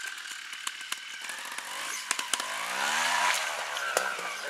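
Trials motorcycle engine running as the bike climbs a brushy hillside, revving up about two and a half seconds in and easing back off a second later. Scattered sharp clicks throughout.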